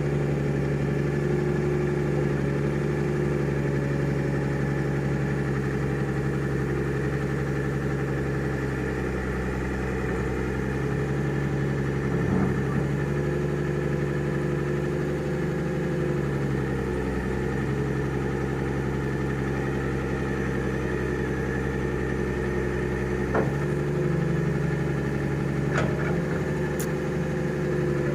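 Excavator's diesel engine running steadily, its note sagging briefly under load about two-thirds of the way through. A few sharp metallic knocks come in the second half.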